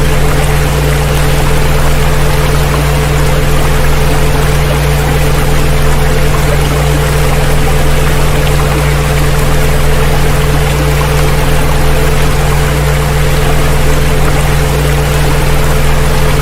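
Several steady electronic tones at different pitches, mostly deep hums, held unchanging over a continuous rush of running water.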